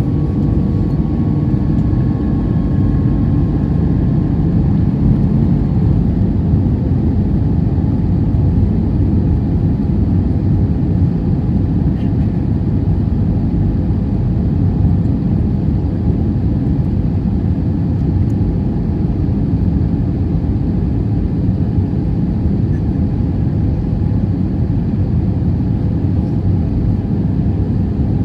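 Steady low rumble of cabin noise inside an Airbus A320 on descent: the airflow and its two IAE V2527-A5 turbofan engines, heard from a window seat over the wing. A faint whine fades out in the first few seconds.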